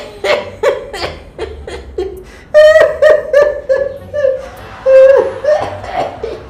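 A man laughing hard: a quick run of short ha-ha bursts at about three a second, then louder, longer, higher-pitched laughs about two and a half seconds in and again near five seconds.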